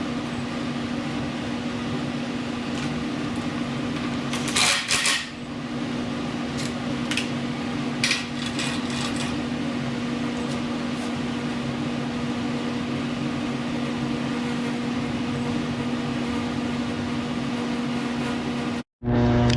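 Steady mechanical hum of a running machine, with a few short metallic clinks and rattles of hand tools about five seconds in and again about eight seconds in.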